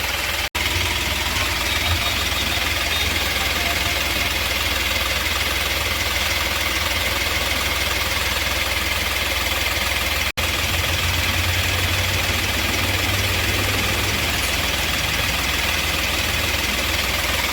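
Ashok Leyland Dost engine idling steadily, with no revving; the engine has a misfire problem. The sound cuts out completely for an instant twice.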